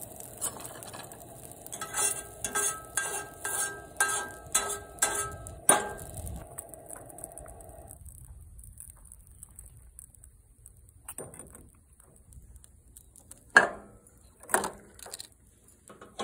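About eight ringing metal taps on a cast-iron skillet, a couple a second, over the steady hiss of a camp-stove burner that cuts off about halfway through. Two louder metal knocks follow near the end.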